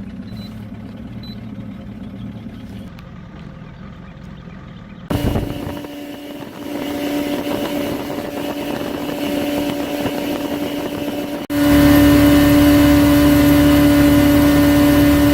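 Boat motor running. A quieter, lower drone changes abruptly about five seconds in and again near eleven seconds to a loud, steady, higher engine note over a rushing noise, as the boat runs under way.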